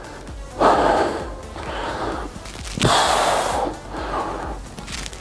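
A man breathing hard through the effort of dumbbell upright rows. Two strong exhales come about a second and three seconds in, with fainter breaths between.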